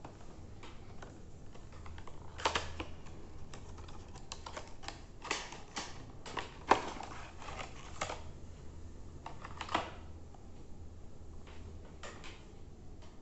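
Small cardboard box being opened by hand and its paper insert and plastic blister tray slid out: irregular clicks, scrapes and crinkles of card and plastic packaging, with one sharp snap about halfway through.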